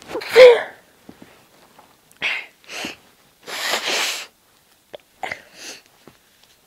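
A woman's held-back sneeze about half a second in, kept quiet on purpose, followed by several shorter, quieter breathy sounds of breathing through the nose and mouth.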